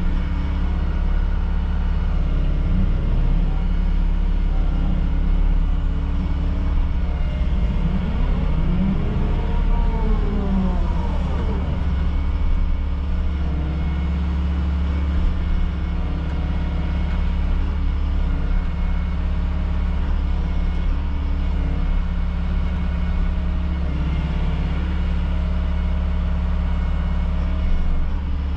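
Volvo excavator's diesel engine running steadily, heard from inside the cab as a low drone. About eight seconds in, a whine rises and then falls in pitch over a couple of seconds.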